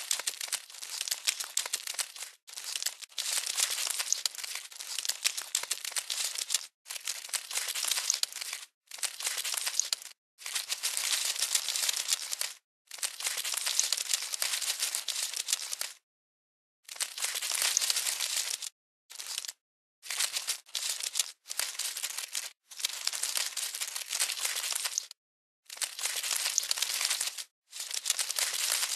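Dry rustling, crinkling sound effect, thin and hissy with nothing low in it, played in bursts of one to four seconds that start and stop abruptly with dead silence between them.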